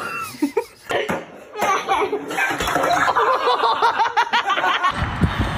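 A group of people laughing, many voices overlapping, cut off abruptly near the end by a low rumble.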